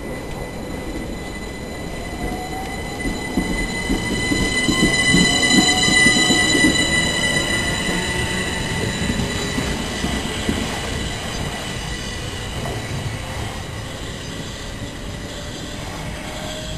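Southern Class 377 electric multiple unit moving out along the platform, its motor whine rising in pitch as it gathers speed over wheel rumble, with steady high-pitched squealing tones. It is loudest about six seconds in and then fades as the train draws away.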